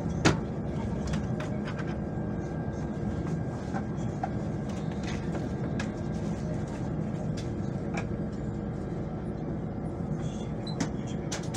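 Steady running rumble and hum of a KTM ETS electric train heard from inside the carriage, with scattered sharp clicks, the loudest about a quarter second in.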